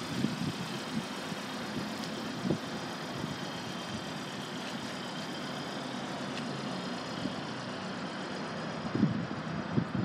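Steady low vehicle rumble with a few brief low bumps, most of them near the end.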